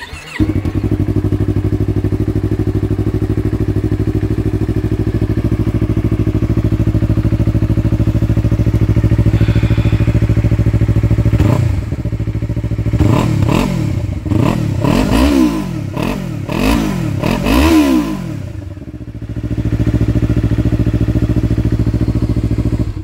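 A Yamaha R3's parallel-twin engine, breathing through an Akrapovic slip-on muffler, idles steadily. About halfway through it is revved in a series of quick throttle blips, each rising and falling in pitch, then it drops back to a steady idle.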